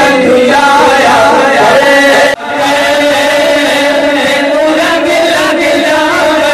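Background song: a voice singing long, wavering notes over music, with a sudden brief drop-out about two seconds in.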